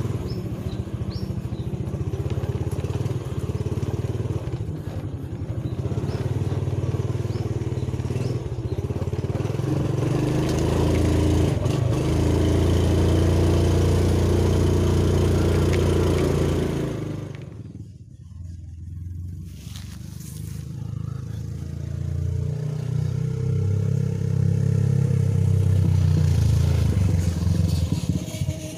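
Small motorcycle engine running while riding over a rough dirt path, its pitch shifting up and down with the throttle. About two-thirds through it eases off sharply, then picks up again.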